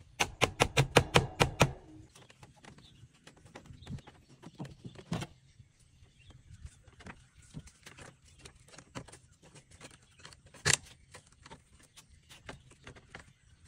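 A hatchet knocking on a bamboo chair frame: a quick run of about nine sharp strikes, roughly five a second, in the first two seconds. After that come light scattered taps and clicks of bamboo being handled, with one sharp knock just before eleven seconds.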